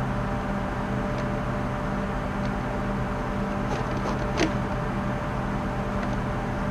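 A steady low hum runs throughout. Over it come a few faint rustles and clicks from a fabric duffel bag being handled and stuffed, the sharpest about four and a half seconds in.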